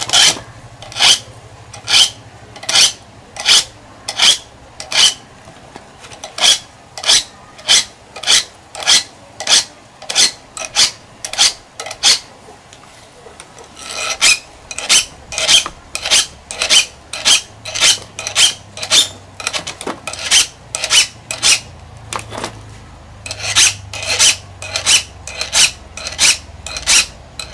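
A blade being sharpened by hand, with rasping strokes repeated about once a second and two short pauses.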